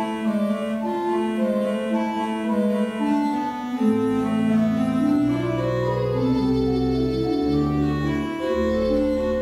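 Church organ playing slow, sustained chords with a moving upper melody; deep bass pedal notes come in about four seconds in.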